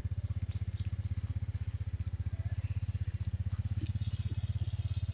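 Small step-through motorbike engine running steadily close by, a rapid even putter of about a dozen beats a second.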